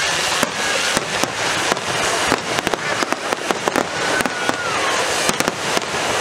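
Aerial fireworks going off in quick succession: continuous crackling with many sharp bangs.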